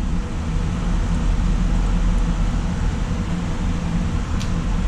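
Cooling fans of GPU mining rigs running steadily, a constant whir with a low hum underneath. There is a short, light click about four and a half seconds in.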